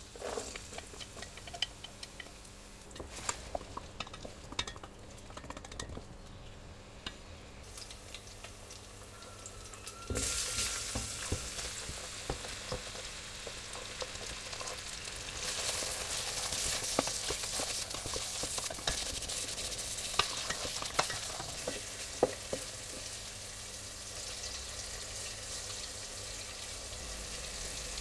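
Diced onion frying gently in oil in a steel pot, with light sizzling and scattered ticks of a wooden spatula. About ten seconds in, diced smoked pancetta goes into the pot and the sizzling suddenly grows louder and stays steady as it is stirred with the wooden spatula.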